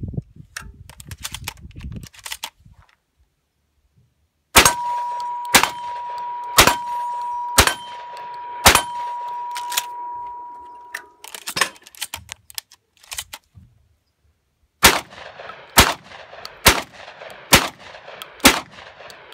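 Stoeger M3K inertia-driven semi-automatic 12-gauge shotgun firing 7/8 oz low-recoil slugs: two strings of five shots about a second apart, the gun cycling each round until the bolt locks back on empty. A steel target rings with a steady tone through the first string, and the second string has no ring because the target has fallen over. A few metallic clicks of the gun being handled come near the start and between the strings.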